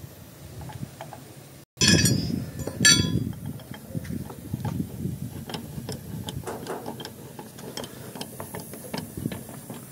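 Two ringing metal clinks as a socket wrench goes onto a truck wheel nut, then a ratchet wrench clicking in quick, uneven strokes as the nut is turned.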